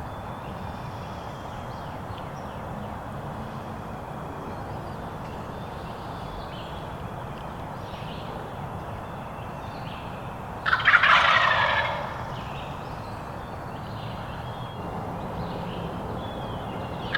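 Wild turkey gobbler gobbling once, a loud rattling call about eleven seconds in, with another gobble starting at the very end.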